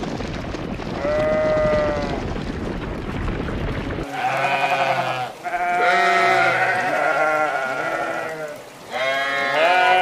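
Sheep bleating. One bleat about a second in sits over a steady rushing noise. After a sudden change about four seconds in, a run of loud, long bleats follows, some overlapping.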